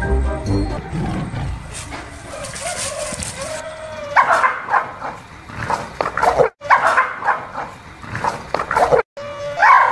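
A small white dog barking in quick sharp bursts, about two a second, from about four seconds in, after a short rising whine: alarmed, defensive barking at a stuffed tiger.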